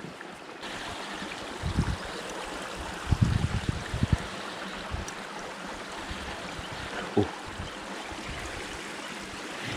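Water running steadily, a stream-like trickle and wash, with a few dull low bumps about two and three to four seconds in.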